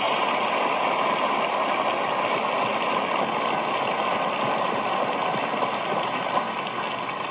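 Theatre audience applauding, heard through a television's speaker; the clapping eases off slowly toward the end.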